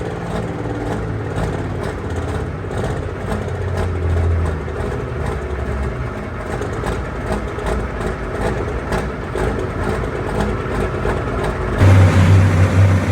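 Loud engine of a competition pulling vehicle running hard under load, a dense rough crackle over a low drone. About twelve seconds in it cuts abruptly to a louder, deeper engine sound.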